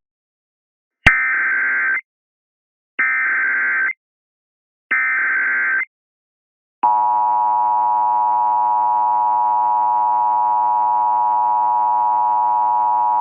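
Emergency Alert System header: three short, identical bursts of SAME data tones, about a second each with a second's gap between them, then the steady two-tone EAS attention signal starting about seven seconds in. Together they mark the start of an emergency alert broadcast.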